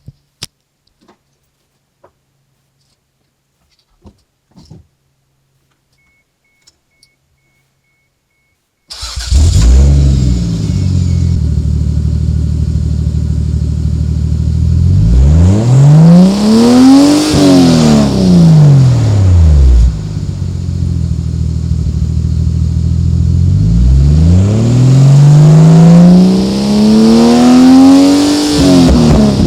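1989 Toyota Supra Turbo's 7M-GTE straight-six, breathing through a 3-inch turbo-back exhaust with a Magnaflow bullet muffler, comes to life about nine seconds in after a few faint clicks, then idles. It is revved twice, the pitch rising over a few seconds and falling back to idle each time, the second rev peaking near the end.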